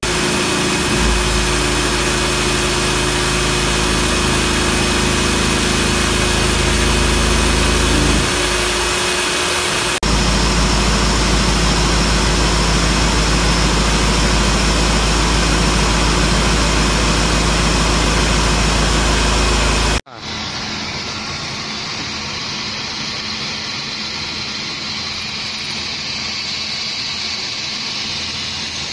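Industrial machinery running steadily and loudly, with a low hum underneath. The sound changes abruptly about ten seconds in, and about twenty seconds in it drops to a quieter, duller run.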